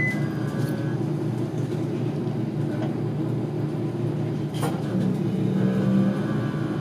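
KiHa 40 diesel railcar's engine and running gear, a steady mechanical drone under way, heard from inside the car. A short high beep sounds at the very start and a sharp click about four and a half seconds in.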